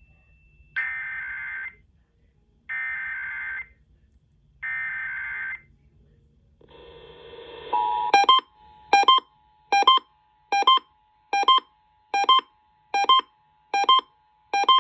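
Emergency Alert System SAME header: three one-second bursts of data-modem screech, then after a short hiss the EAS two-tone attention signal begins, its steady dual tone pulsing loudly about once every 0.8 s.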